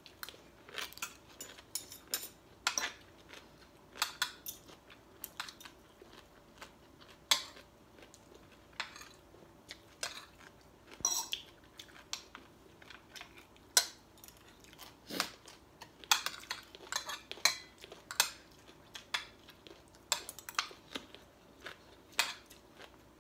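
Metal forks and spoons clinking against ceramic plates during a meal: irregular sharp clinks, a couple of them louder, about seven and fourteen seconds in.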